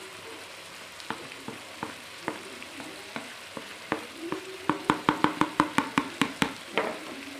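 Peas, tomatoes and freshly added spice powders frying in a pan, with a low sizzle and scattered sharp clicks. A little over halfway through comes a quick run of loud clicks, about six a second, lasting about two seconds.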